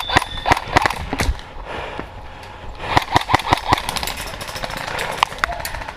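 Airsoft guns firing: sharp, irregular clicks and snaps in two volleys, one in the first second and another about three seconds in.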